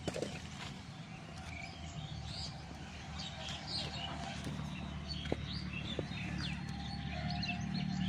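Many small birds chirping and twittering in quick, overlapping calls, over a steady low hum.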